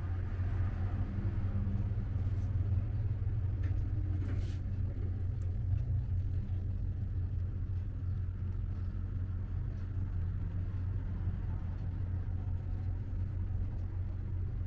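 A steady low rumbling hum.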